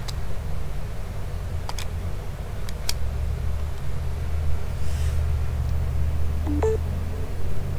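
A phone in a hard case being handled in a Qi wireless charging mount: a few light plastic clicks, then, about six and a half seconds in, a short two-note rising beep as wireless charging starts again. A steady low hum runs underneath.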